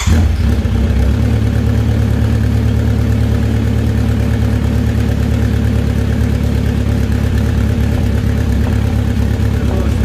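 Kawasaki Z900RS inline-four engine, just fired up, idling steadily through an aftermarket Delkevic exhaust with twin chrome silencers.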